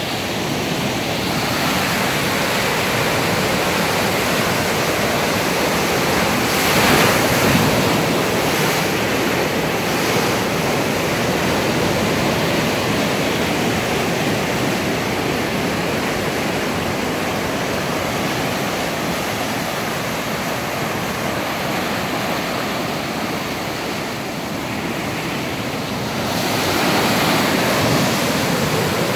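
Mountain river in flood after heavy rain, muddy water rushing through a concrete channel and foaming over its stepped drops in a loud, steady rush. It grows louder about seven seconds in and again near the end, where the churning water below a drop is close.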